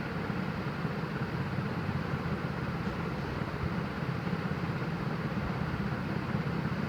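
Steady low hum with a soft hiss: background room noise, with no distinct event.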